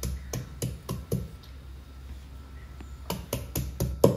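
Stone pestle pounding garlic cloves against a flat stone slab: a run of sharp knocks, a pause of over a second, then another quick run of knocks near the end.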